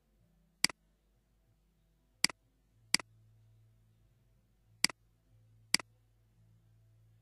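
Computer mouse button clicked five times at uneven intervals, each a sharp press click followed closely by a softer release click.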